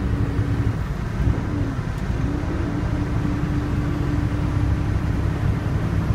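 Semi-truck engine and road noise heard inside the cab while driving: a steady low rumble with a steady droning tone that drops out for a second or so about a second in.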